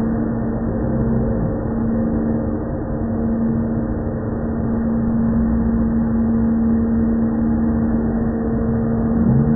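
Corded electric leaf blower running steadily, its motor and fan holding one constant pitch.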